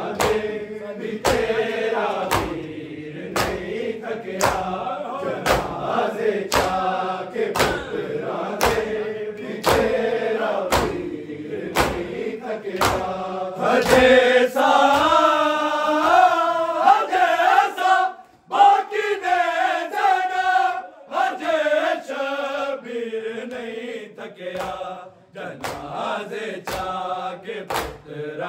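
Men's voices singing a Punjabi noha lament over matam: bare-handed chest-beating in unison, sharp slaps about three every two seconds. Around the middle the slaps drop away while the voices hold long, wavering notes, and the beating picks up again near the end.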